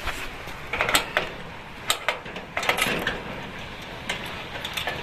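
Irregular metallic clicking and scraping of a key being worked into the lock at the foot of a rolling steel shop shutter, in small clusters of clicks.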